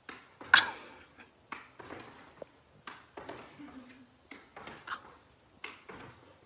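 Irregular thumps and scuffs of a black-and-white pet's paws landing and scrabbling as it leaps and spins. The loudest thump comes about half a second in.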